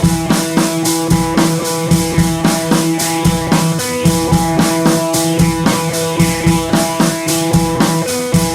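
Outro music: rock with a steady drum-kit beat and guitar.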